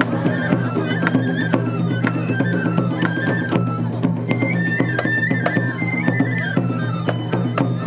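Shishimai lion dance festival music: a Japanese transverse bamboo flute plays a high, stepping melody over frequent taiko drum strikes, with a steady low hum underneath.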